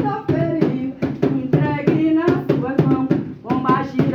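Voices singing an Umbanda ponto, a devotional chant to Exu, over a steady beat of hand claps.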